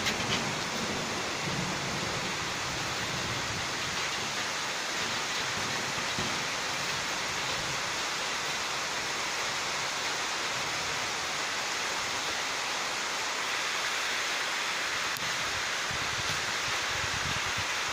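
Heavy rain falling steadily on the roofs, an even, unbroken hiss.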